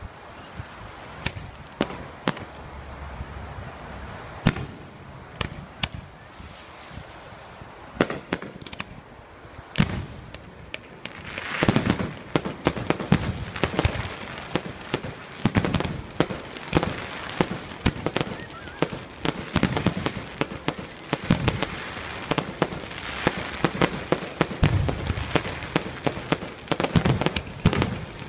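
Aerial fireworks display: a few scattered bangs at first, then from about twelve seconds in a dense run of rapid bangs and crackle.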